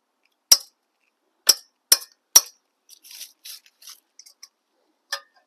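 Sharp metal-on-metal strikes of hand tools on the exhaust header bolts: four loud hits in the first two and a half seconds, lighter clinks after, then two more hits near the end.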